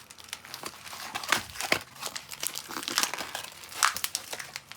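Toy packaging being handled, with plastic and paper crinkling in irregular rustles and crackles and a few sharper crackles.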